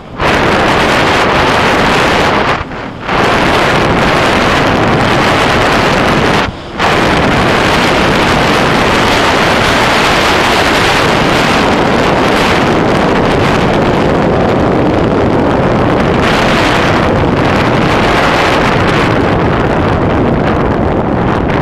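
Wind buffeting the action camera's microphone on a fast mountain-bike descent, a loud steady rush that drops out briefly twice, about three and about seven seconds in.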